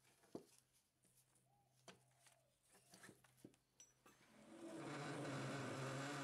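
A few faint clicks of a digital caliper being handled, then from about four seconds in a metal lathe starts running steadily with a low hum, a large twist drill boring into the spinning steel workpiece.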